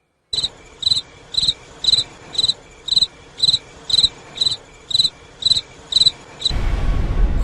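A cricket chirping: short, high chirps repeated evenly at about two a second. Near the end a loud, low noise cuts in over it.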